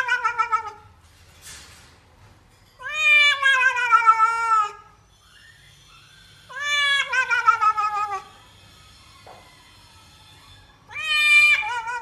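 A cat meowing while being bathed in a basin. It gives long, drawn-out meows that start high and fall in pitch: the end of one at the start, then three more, about four seconds apart.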